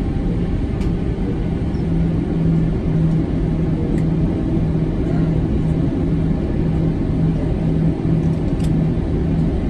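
Airbus A320 cabin noise while taxiing: a steady low rumble from the jet engines at idle and the rolling airframe, with a low hum that comes and goes.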